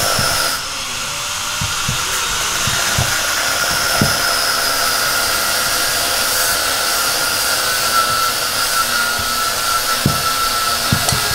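Steady hiss of compressed air with a faint whistle, blown into a brake caliper to push out a seized piston, while locking pliers grip and twist the piston with a few light metal clicks.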